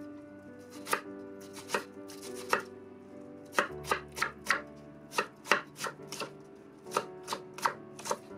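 Chef's knife chopping an onion on a wooden cutting board, each cut ending in a sharp knock of the blade on the wood. A few separate cuts come first, then a quicker run of knocks, about two or three a second, from about three and a half seconds in.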